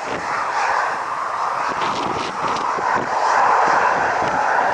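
Jet engines of a Ryanair Boeing 737 running on the runway: a steady roar that swells a little about three seconds in. Gusty wind buffets the microphone underneath.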